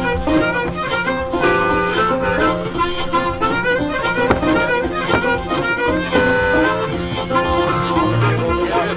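Background music led by a harmonica, with other instruments backing it.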